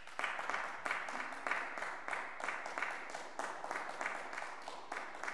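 Audience applauding, with individual hand claps standing out above the steady patter.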